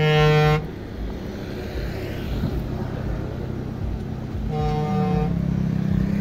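Vehicle horn sounding two short, steady blasts, one at the start and another about four and a half seconds in. Under them runs the engine of passing traffic, a steady low hum that grows louder in the second half.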